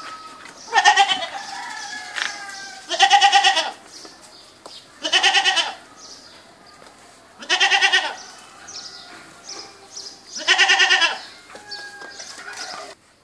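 A goat bleating five times, loud wavering calls of about half a second each, two to three seconds apart.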